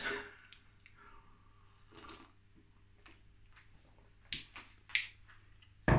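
A man sipping and swallowing tea from a mug, with small soft mouth and drinking sounds and two short sharp clicks near the end.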